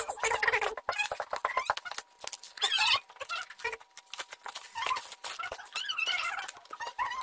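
Plastic bubble-wrap packaging crinkling and crackling as it is handled and pulled off a cardboard box, with squeaky rubbing of plastic against cardboard that comes and goes several times.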